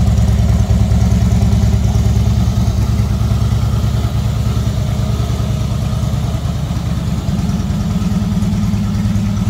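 Harley-Davidson Breakout's 1690 cc air-cooled V-twin idling steadily, with its uneven low pulsing beat.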